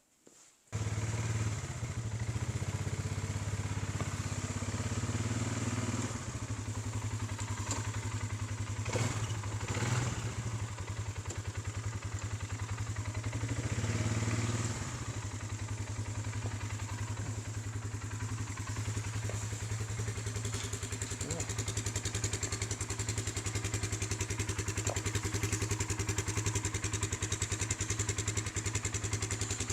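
Four-wheeler (ATV) engine running steadily, starting abruptly just under a second in, with a few knocks and clatters around the middle.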